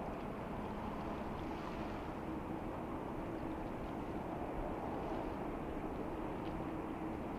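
Distant jet airliner engines running at low power: a steady low rumble and hiss with faint, slowly shifting whining tones.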